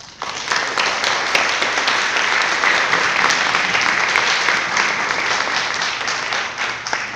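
Audience applauding: loud clapping from many hands that starts right away, holds steady, and dies down near the end.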